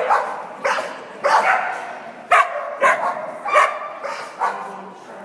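A dog barking over and over, about seven sharp barks at roughly half-second to one-second intervals, echoing in a large indoor arena, as typical of an excited dog on an agility course.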